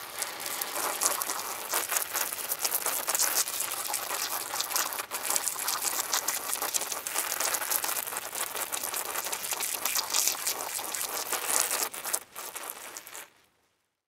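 Underwater ambience over a coral reef: a dense, steady crackle of countless tiny clicks that cuts off abruptly near the end.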